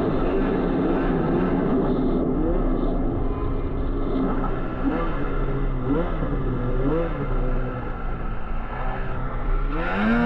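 Snowmobile engine running under way, its pitch rising and falling several times as the throttle is worked, then climbing again near the end.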